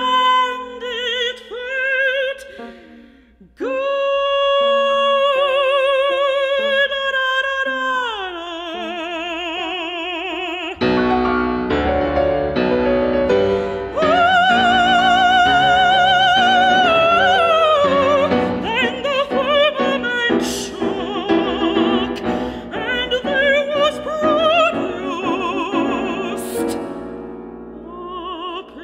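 Female operatic voice with piano, singing a wordless vocalise of long, wide-vibrato held notes. There is a brief break about three seconds in. The piano grows fuller from about eleven seconds in, under a high sustained note.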